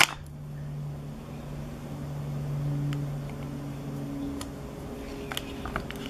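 A steady low hum, with a few faint clicks from puffy stickers being peeled and handled, mostly in the second half.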